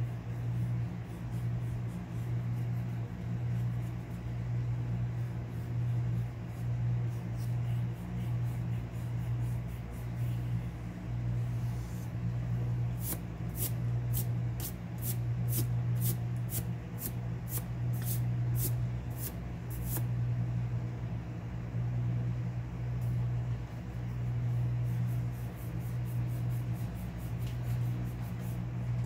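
Small eraser rubbing back and forth on drawing paper in quick strokes, two to three a second, from about halfway in and again near the end, over a steady low hum.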